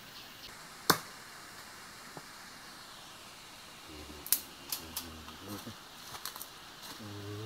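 Sharp clicks or knocks: one loud one about a second in, then a scattered run of smaller ones from about four seconds on. A low voice murmurs briefly in the second half and again near the end.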